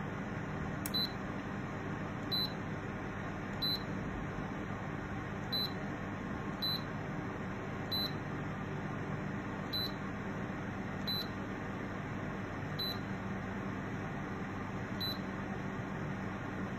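COMLIFE fan heater running with a steady rush of air, while its control panel gives about ten short, high beeps at irregular intervals as its temperature and timer settings are stepped through.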